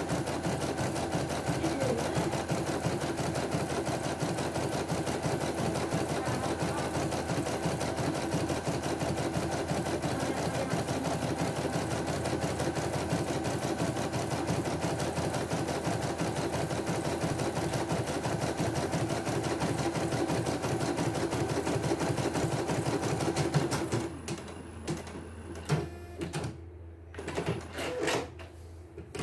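CNY E900 computerised embroidery machine stitching a test design, its needle running in a fast, even rhythm. The stitching stops near the end, leaving a few light clicks.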